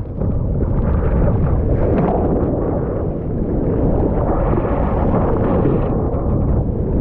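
Wind buffeting the microphone over rough sea surf: a loud, steady rushing noise that carries on without a break.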